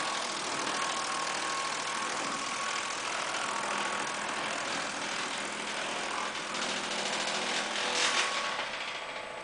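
Disc wood chipper running with a steady, loud mechanical noise, with a brief louder surge about eight seconds in before it eases off near the end.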